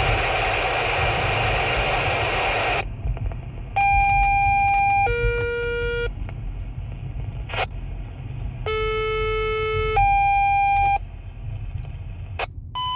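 Fire dispatch radio heard inside a moving car. A burst of radio static lasts about three seconds, then come two-tone paging alert tones: a high tone stepping down to a lower one, and a few seconds later a low tone stepping up to a higher one. The car's low road rumble runs underneath.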